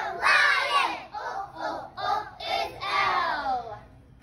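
A group of young children singing together loudly, close to shouting, in short phrases; the singing stops near the end.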